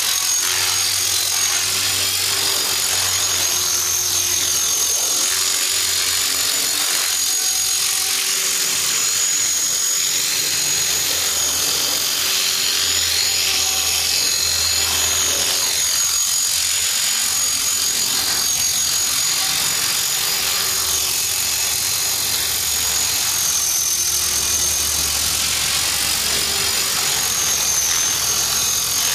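Align T-Rex 450 electric RC helicopter hovering: a steady high-pitched whine from its motor and gears over the buzz of the rotor. The whine dips briefly a few times. A ticking can be heard, which the owner puts down to a very slightly bent main shaft.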